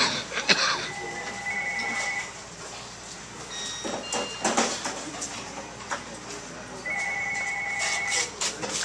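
A telephone ringing twice, each ring a trilling electronic tone a little over a second long, the second coming about six seconds after the first. Short clatters and voices in between.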